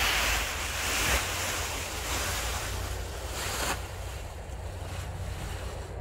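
Strong wind gusting over the microphone: a low rumble under a broad rushing hiss, loudest in about the first second.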